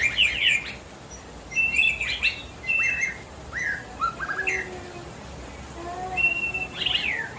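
White-rumped shama (murai batu) singing phrase after phrase of clear whistles, fast downward-sweeping notes and short held notes, with brief pauses between phrases. Its song is filled with imitations of other birds' calls (cililin, jenggot, kapas tembak).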